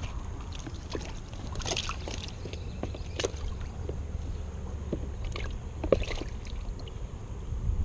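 Low steady rumble, with scattered light clicks and rustles of a freshly caught crappie being handled and unhooked over a cooler of water, the sharpest click about six seconds in.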